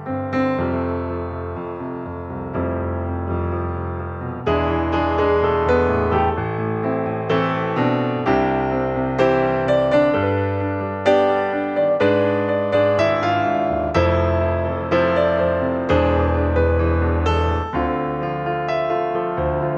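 Background music played on piano or electric piano: a gentle melody with sustained chords over a steady bass line.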